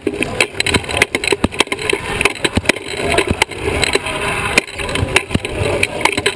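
Sports wheelchair rolling across a hardwood gym floor, picked up through a camera fixed to the chair's frame: a steady rolling rumble broken by many sharp clacks and knocks.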